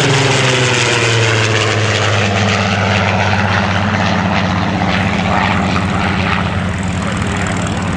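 Supermarine Spitfire's piston aero engine droning as the fighter flies past and banks overhead. The pitch sags a little in the first second or so as it goes by, then the note holds steady.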